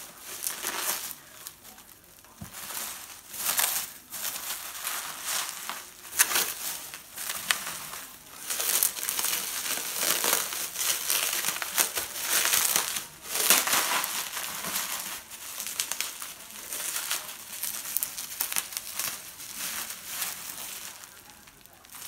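Bubble wrap crinkling and rustling in irregular bursts as it is handled and pulled off a foundry crucible, with a few sharp crackles.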